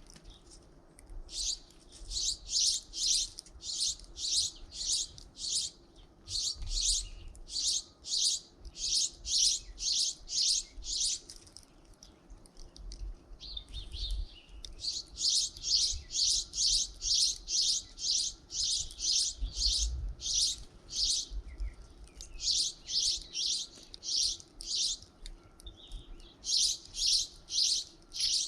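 Small songbirds chirping, with short high-pitched chirps several a second in long runs broken by brief pauses.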